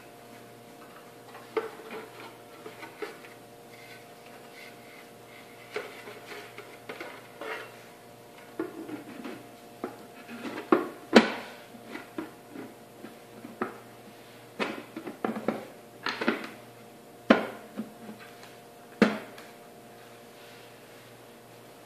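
Benchtop centrifuge being reassembled by hand, its plastic outer housing fitted onto the metal base: irregular knocks, clicks and scrapes as the parts are handled, a few sharp knocks standing out about halfway through and near the end. A faint steady hum runs underneath.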